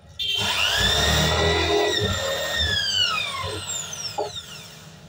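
Corded electric drill, mounted in a homemade wooden drill jig, switched on: its motor whines up to full speed almost at once, runs steadily for about two seconds, then is released and spins down with a falling whine.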